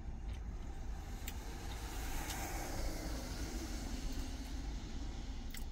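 Steady low engine rumble of an idling truck heard from inside its cab, with a noisy wash that swells a little in the middle.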